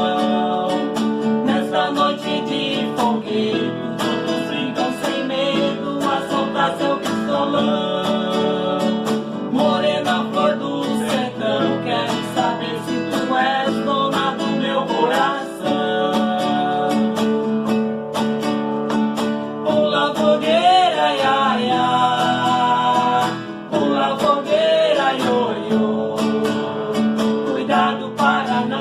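Acoustic guitar music, strummed and plucked, playing a festa junina tune with a steady rhythm.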